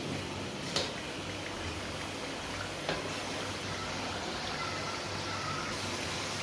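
Chicken karahi gravy bubbling steadily in an aluminium karahi as the yogurt gravy cooks down and the oil rises with bubbles, the sign that the chicken is well browned. Two light knocks come about a second in and again near three seconds.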